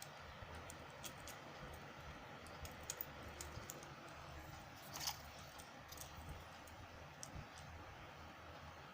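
Scattered light clicks and taps of small objects being handled, with the loudest click about five seconds in, over a faint steady hum.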